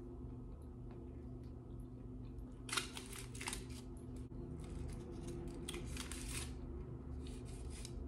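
Eating a foil-wrapped burrito: the aluminium foil crinkles in short crackly bursts as it is handled, along with close chewing, over a steady low hum.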